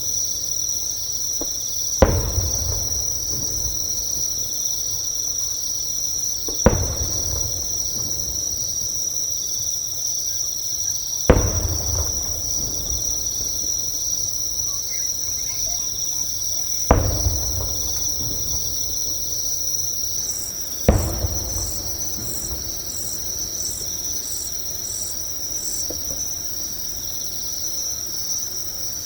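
Insects trilling steadily and high-pitched close by, while distant fireworks go off five times, a sharp bang every four to five seconds, each followed by a low rolling rumble. About twenty seconds in, a second insect adds a quick pulsing chirp, about two a second, for several seconds.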